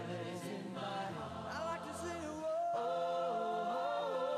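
Background music: a choir of voices singing a slow chant in harmony, with notes held and sliding between pitches.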